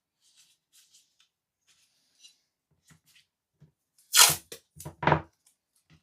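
Light clicks and taps of handwork on a small diecast model, then two louder, short scraping strokes a little after four and five seconds in.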